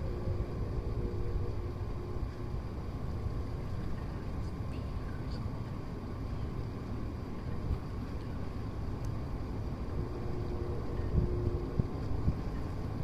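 Steady low rumble of wind on the microphone out on the water, over a faint steady hum. Brief faint held tones come twice, near the start and about ten seconds in, and a few low thumps come near the end.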